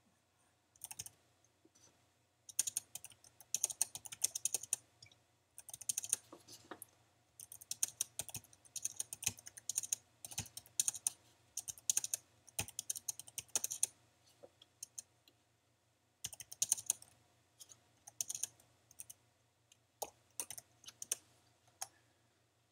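Typing on a computer keyboard: short runs of quick keystrokes separated by brief pauses, as numbers are keyed into a data table one value at a time.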